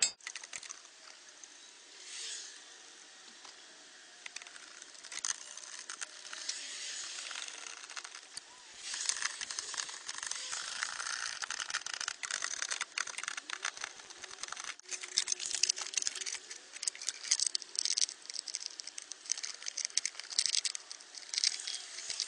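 Rustling and many scattered light clicks and rattles of parts being handled by hand: the rubber shift boot and the trim being refitted around a freshly installed short-throw shifter.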